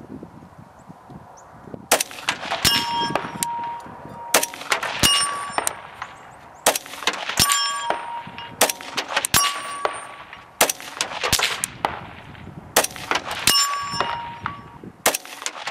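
Steel target plates being hit by rifle bullets in quick succession: more than a dozen sharp strikes, each followed by a clear metallic ring.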